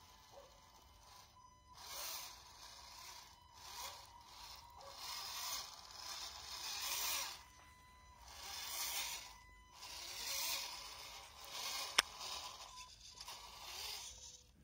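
RC scale-model Opel Blitz truck driving through tall grass: its small electric motor and gearbox whine in spurts while grass scrapes and rustles against the body and wheels. One sharp click about twelve seconds in.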